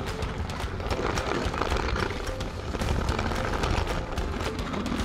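Lego train running along plastic Lego track, heard from a camera riding on it: rapid, irregular clicking and rattling over a low rumble.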